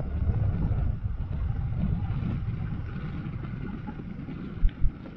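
Wind rumbling on the microphone with the road noise of a moving vehicle on a wet road, slowly fading, with two short thumps near the end.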